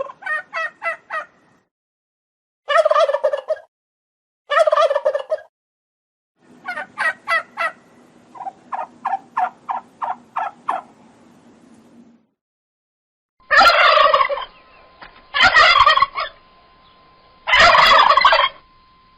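Turkeys gobbling: a string of separate gobbles, each a quick rattling run of notes, with silent gaps between them. The last three, in the second half, are louder and harsher.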